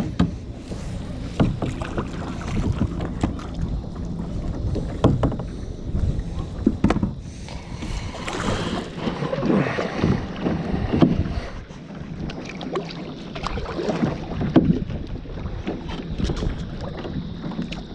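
Kayak on the water: paddle strokes splashing, with irregular knocks of the paddle or gear against the plastic hull.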